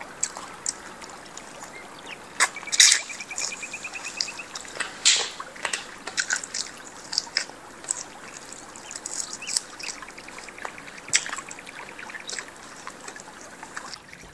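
Wet eating sounds from steamed chicken feet being gnawed and chewed: scattered smacks, sucking and sharp clicks, with two short runs of rapid, even ticking, a couple of seconds in and again about ten seconds in.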